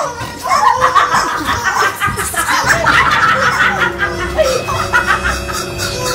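Several people laughing and giggling over steady background music.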